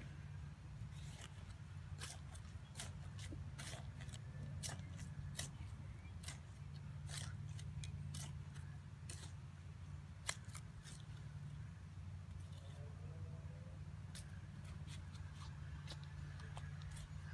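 Hand trowel digging into garden soil: a string of short, gritty scrapes and clicks at an irregular pace, with one sharper knock about ten seconds in. A steady low hum runs underneath.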